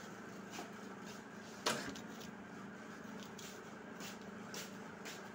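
A metal spoon scooping the seeds out of halved bitter gourd, giving faint scrapes and light clicks, with one sharp click a little under two seconds in. A steady low hum runs underneath.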